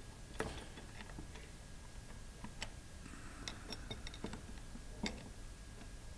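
Two steel wrenches working the bolts that hold an elbow to a plastic pump manifold, loosening them: faint, irregular metal clicks and ticks, the sharpest near the start and about five seconds in.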